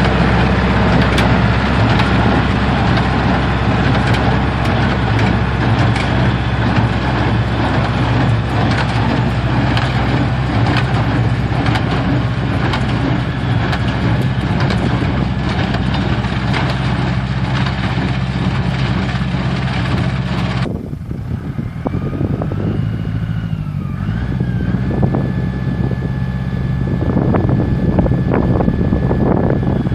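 Diesel engine of a Deutz Agroplus 70 tractor running steadily, driving a New Holland Hayliner 274 small square baler. The baler's clatter and sharp knocks ride over the engine. About two-thirds through the clatter drops away suddenly, and a thin high steady tone comes in over the engine.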